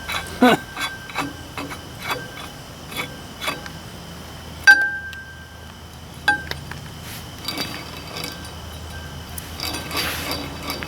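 Metal clinks and knocks of hand tools and parts being worked on a tractor's front wheel hub, with a sharp ringing clink about four and a half seconds in and a smaller one a second and a half later.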